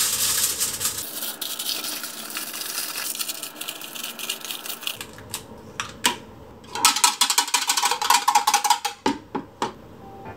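Aluminium foil crinkling as it is handled and cut with scissors, then an egg cracked into a plastic measuring cup about six seconds in, followed by a quick run of clattering clicks. Light background music.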